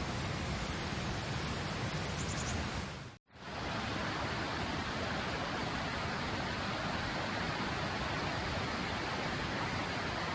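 A steady rushing hiss that drops out for a moment about three seconds in, then resumes.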